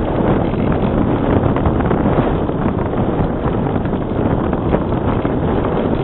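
Steady rush of wind noise from airflow buffeting the microphone of a camera riding on a Bixler RC plane in flight.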